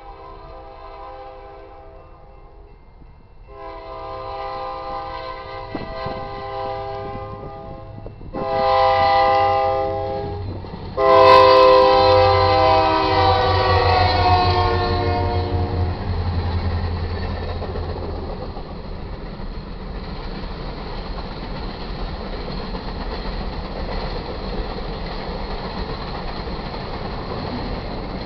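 Air horn of a westbound freight train's lead EMD SD40-2 locomotive sounding the grade-crossing signal: the end of a long blast, another long blast, a short one, then a final long blast, the loudest, which drops in pitch as the locomotive passes. Then the diesel locomotives' low rumble and the steady rolling clatter of freight cars going by.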